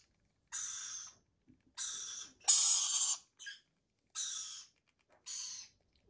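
Baby rainbow lorikeet giving harsh, raspy begging squawks while being spoon-fed: about five or six calls of roughly half a second each at a steady pace, the loudest near the middle.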